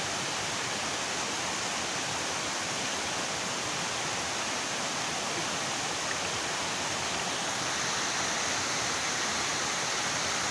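Waterfall pouring steadily, a constant rushing of falling water that grows slightly louder near the end.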